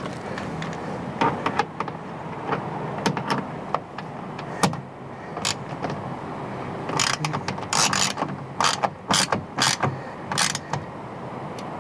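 Irregular clicking and rattling of a hand tool driving in the screws that hold a plastic rear wheel liner in place, busiest from about seven to ten and a half seconds in.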